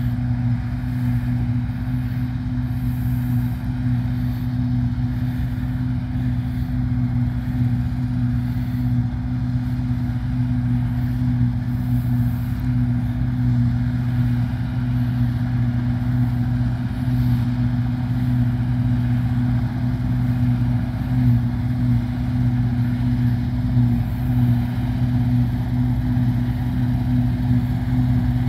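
New Holland TX68 combine harvester running steadily while cutting winter barley: a continuous low engine hum that grows slightly louder as the machine approaches.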